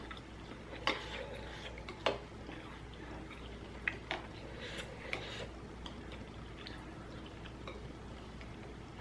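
Faint eating sounds of someone chewing ramen noodles: sporadic small clicks and soft wet smacks at irregular moments.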